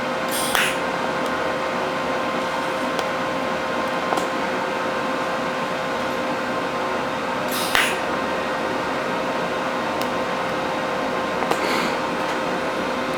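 TIG welding arc held steady while a continuous bead is run over pinholes in a MIG-welded seam: an even hiss with a steady hum, broken by a few faint ticks.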